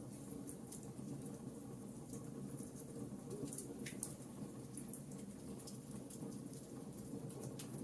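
Wood fire crackling in a fireplace: irregular sharp pops and snaps, several a second, over a steady low rustling hiss.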